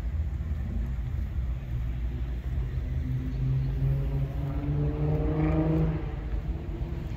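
A steady low rumble of car engines and traffic. From about three seconds in, an engine note rises slowly for about three seconds, as a nearby car pulls away, and then stops.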